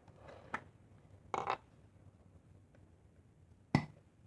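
Quiet handling sounds while making slime: a faint click, a short rustling burst about a second and a half in, and a sharp knock near the end.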